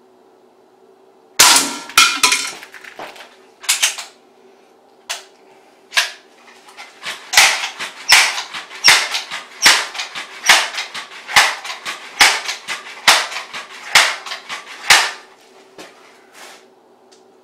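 Pellet gun firing a string of shots: a quick cluster about a second and a half in, a few scattered shots, then a steady run of about two shots a second for some eight seconds.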